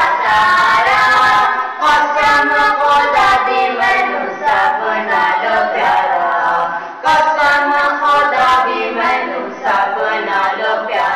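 A man singing a Punjabi naat, a devotional song in praise of the Prophet Muhammad, without instruments.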